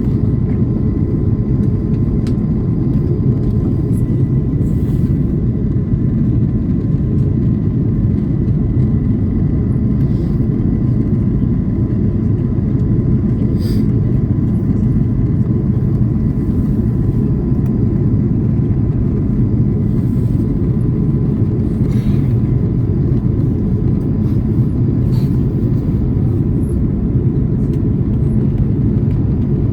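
Cabin noise of an Airbus A330 airliner on descent: a steady deep rumble of engines and airflow, with a faint steady high whine and a few soft ticks.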